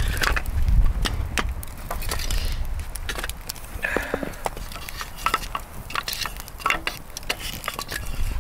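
Wood fire crackling in a metal fire grill while the burning logs are moved with metal tongs: many short clicks and wooden knocks, with brief scrapes of wood shifting on the grate.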